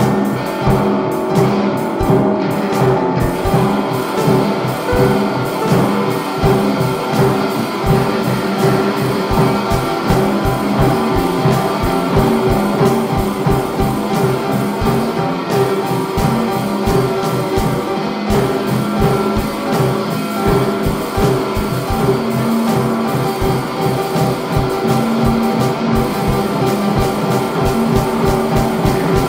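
Improvised rock band music: electric guitar holding sustained notes over drums and percussion keeping a fast, even pulse.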